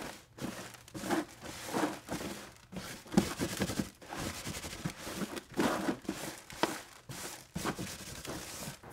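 Sawdust scrubbed around by hand against the bottom of a plastic oil drain pan, wiping up the leftover oil: irregular scratchy, rustling strokes.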